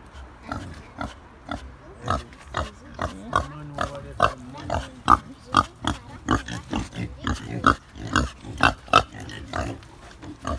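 Pigs grunting: a steady run of short grunts, about two a second.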